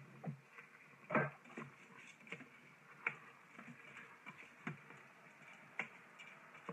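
Spoon knocking and scraping against an Instant Pot's stainless steel inner pot as rice is stirred in: a faint, irregular scatter of clicks, the loudest about a second in.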